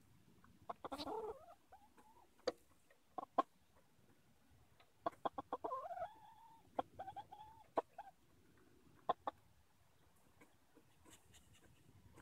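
Easter Egger hen clucking, with a drawn-out call about six to eight seconds in, among scattered sharp clicks and taps.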